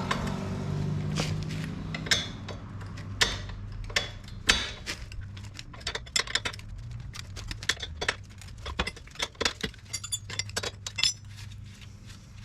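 Hand wrench and socket clicking and clinking against steel bolts in irregular short metal clicks, with a quicker run of clicks near the end, while the top hub bolts on an ATV's rear axle hub are loosened.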